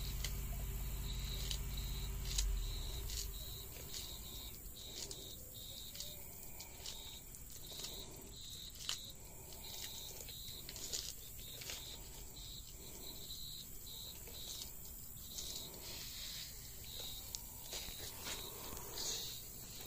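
Sulcata tortoise biting and chewing crisp romaine lettuce: scattered short crunches and crackles. A high, short chirp repeats steadily in the background, and a low rumble with a bump fills the first few seconds.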